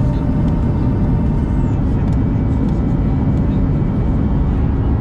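Steady cabin noise of a Boeing 737 MAX 8200 in flight: a constant low rumble of the CFM LEAP-1B engines and airflow, heard from inside the passenger cabin, with a few faint steady tones above it.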